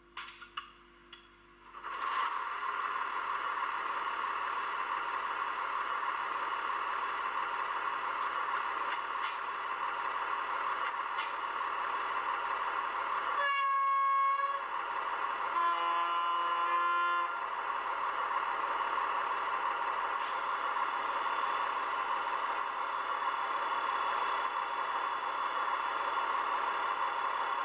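Digital sound decoder of a Roco H0 model class 628 diesel railcar, played through the model's small loudspeaker. A few clicks, then the simulated diesel engine starts and runs steadily. About halfway the horn sounds a higher note, then a second, lower note about two seconds later, and later a steady high whine of the simulated air compressor joins the engine sound.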